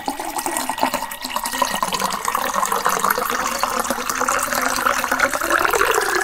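Distilled water being poured in a steady, unbroken stream into a faux crystal glass, splashing as the glass fills.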